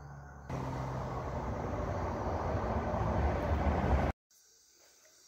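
Rumbling handling noise on a phone's microphone as it is picked up and carried, growing louder for about three and a half seconds before cutting off abruptly.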